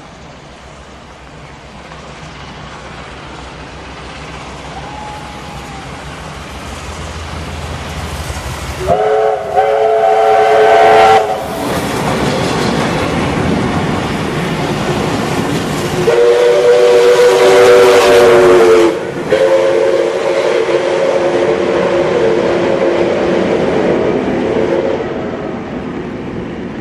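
Two racing steam trains running past at speed, their rumble building, peaking as the locomotives and carriages pass, then fading. A steam whistle sounds three blasts, each a chord of several notes: about nine seconds in, about sixteen seconds in, and a longer one of about five seconds just after that.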